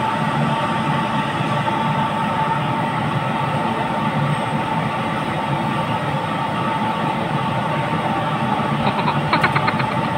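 Steady machine drone with a constant high hum, and a run of rapid ticks near the end.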